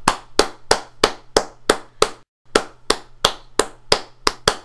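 Recording of one person clapping hands, played back: single claps evenly spaced at about three a second, with a brief dropout to dead silence about two seconds in.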